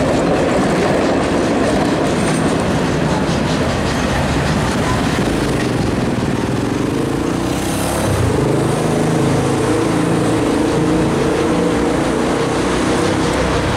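Passenger coaches of a steam-hauled train rolling past at speed, steel wheels clattering over the rail joints. About eight seconds in, a low steady engine hum joins the rumble.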